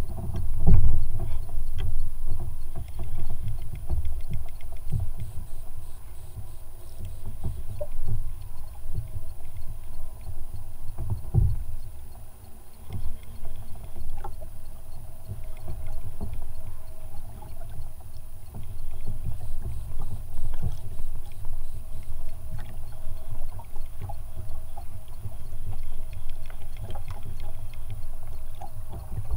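Water lapping against a plastic fishing kayak's hull and wind buffeting the bow-mounted microphone, an uneven low rumble that swells and fades irregularly, with a few faint clicks.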